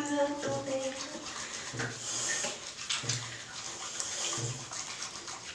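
Wet hands rubbing and squishing soap-producing tree fruits with water, working up a lather. A woman's voice is heard briefly at the start.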